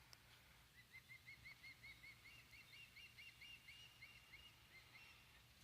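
Faint bird song: a fast, even run of short repeated chirping notes, about five a second, lasting some four seconds, with a second, higher line of notes joining partway through.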